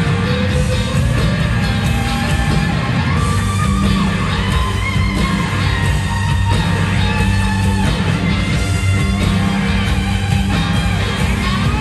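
Live rock band playing, with a drum kit, bass and guitars together, and lead notes that glide upward in pitch a few times.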